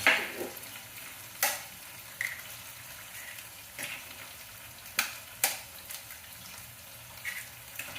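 Eggs frying in a pan with a steady sizzle, a utensil knocking sharply against the pan a few times: once right at the start, again about a second and a half in, and twice around five seconds in.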